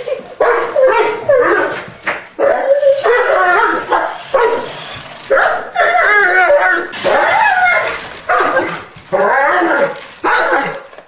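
A large dog barking and whining excitedly in repeated bursts, one to two a second, with a wavering, yowling pitch: play-barking while chasing a remote-control toy truck.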